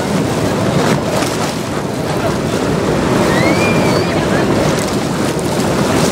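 Swollen Krishna floodwater rushing past in a steady loud wash, with wind buffeting the microphone. A brief high whistle rises and falls about three seconds in.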